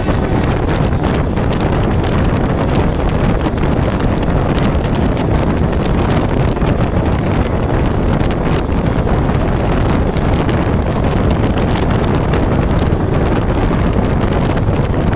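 Loud, steady wind buffeting the microphone, over the running noise of a moving train.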